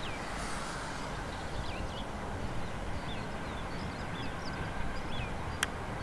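Low steady rumble, with small birds chirping in short hooked notes throughout. A single sharp click comes about five and a half seconds in.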